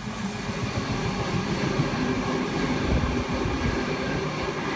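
OSCAR (H set) double-deck electric multiple unit running through the station at speed on an express service: a steady rumble of wheels on rails with irregular clatter.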